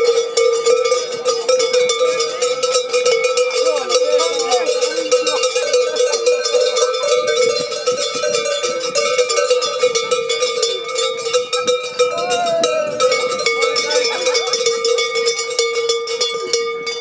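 A cowbell shaken rapidly and continuously, its clapper striking many times a second and the bell ringing in one steady tone. Crowd voices are faint underneath.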